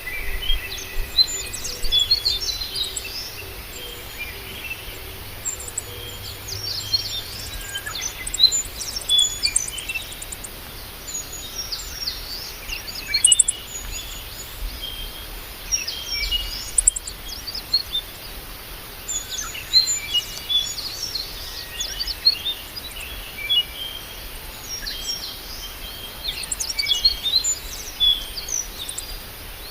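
Several wild birds chirping and calling outdoors: short, quick chirps and twittering notes in clusters, coming and going, over a faint low background rumble.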